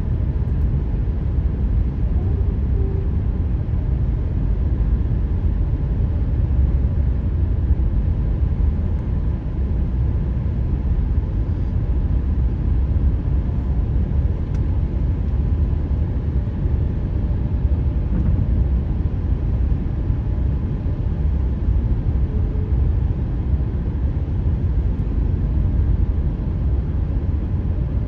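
Steady tyre and road rumble from a car driving at highway speed over fresh asphalt, with a faint steady high tone above the rumble.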